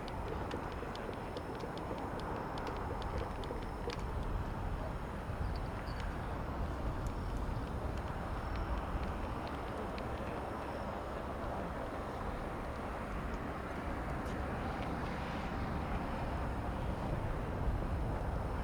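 Boeing 787-9 jet engines heard from the runway side: a steady rumble and hiss that swells a little near the end. A run of faint ticks sounds over the first few seconds.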